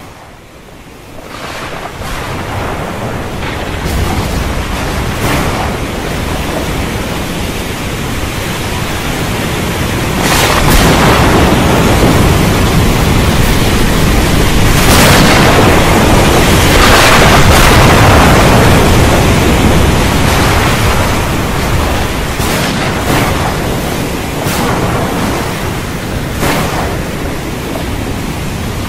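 Sound-design rumble: a dense rushing noise swells in from quiet over the first two seconds and is loudest in the middle. Sharp cracks, like thunder or electrical discharges, break through it at intervals.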